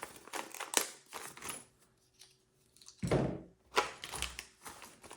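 Package and small parts being handled: scattered light clicks and rustling, with a couple of louder knocks about three and four seconds in.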